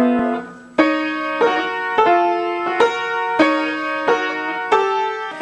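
Upright piano played: chords struck in an even rhythm about every two-thirds of a second, each left to ring.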